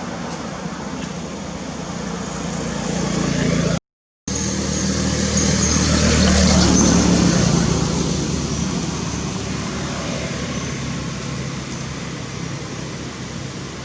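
A road vehicle passing, growing louder to a peak a few seconds in and then fading, over a steady outdoor background hiss. The sound drops out completely for about half a second before the vehicle swells up.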